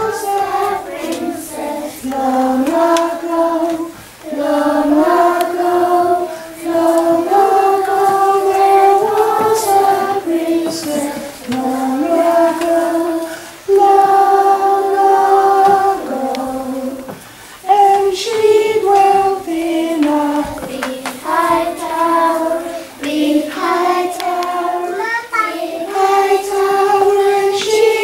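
A group of children singing one melody together, in phrases of held notes with short breaks between them.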